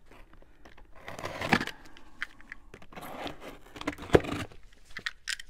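A taped cardboard box being opened by hand: irregular rustling, scraping and crinkling of cardboard and packing material, with a sharp click about four seconds in.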